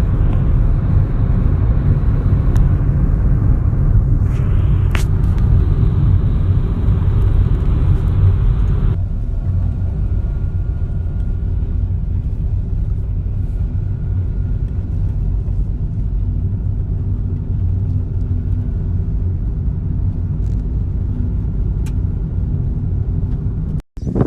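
A steady low rumble of noise, with a slight change in its character about nine seconds in.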